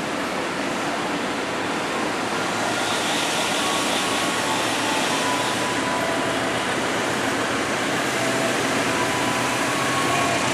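KRL commuter electric train (set TM 6132) at a station platform: a steady rush of running noise with faint motor whine tones that shift in pitch, growing slightly louder.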